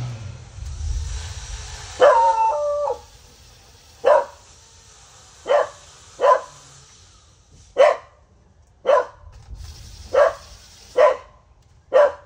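Pet dog barking: one drawn-out, howling bark about two seconds in, then eight short, sharp barks spaced about a second apart. The barking is set off by the booms of distant artillery fire.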